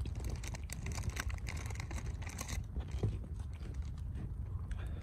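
Wood campfire crackling, with a dense run of small pops and snaps in the first two and a half seconds and a sharper snap about three seconds in, over a steady low rumble.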